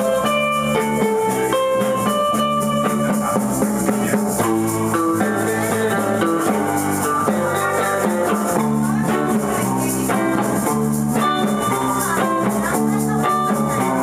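Live instrumental surf rock: electric surf guitars playing a melody over drums, with a steady shaking rattle on the beat.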